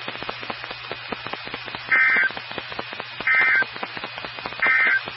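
Weather radio receiver playing three short buzzy digital data bursts, each about a third of a second and spaced a little over a second apart. These are the SAME (EAS) end-of-message code that closes the warning broadcast. Crackling radio static and a low hum run underneath.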